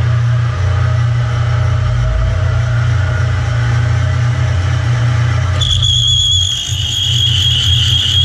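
Milling machine running slowly in back gear, a large twist drill cutting into a rusty steel bar, with a steady low motor-and-gearing hum. A bit over halfway through, a high-pitched squeal from the bit cutting starts and holds steady, then stops abruptly near the end.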